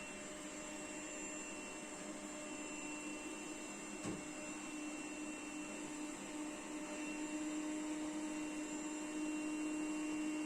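Puppyoo R30 robot vacuum running, a steady motor hum with a thin high whine, growing gradually louder. A single knock sounds about four seconds in.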